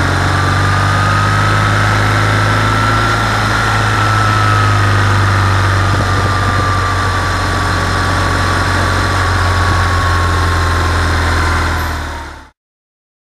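BMW R 1200 GS boxer-twin engine running steadily under way, mixed with wind and road noise, with a thin high whine that rises a little and falls back. The sound fades out near the end and cuts to silence.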